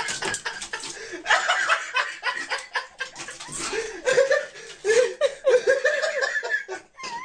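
A person laughing in quick, high-pitched bursts, heaviest from about four seconds in.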